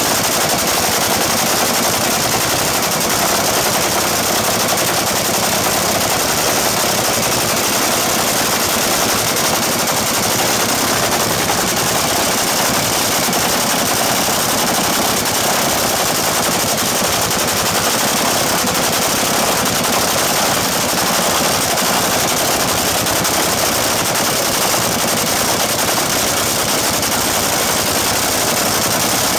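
Supercharged nitromethane-burning ("fuel motor") drag boat engine being test-fired as a warm-up: it runs at a steady idle through open short headers, a loud, even rapid-fire rattle.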